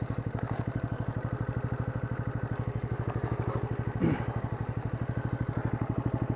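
Junak M12 motorcycle engine running steadily at low revs with an even, rapid putter while the bike rolls slowly over a forest track, with one short bump about four seconds in.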